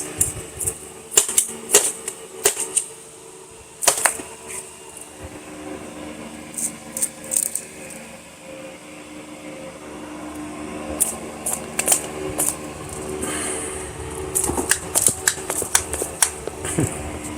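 Irregular clicks and taps from an aluminium beer can being handled and worked as a wax-and-sawdust fire starter is pulled loose inside it, over a steady background hum.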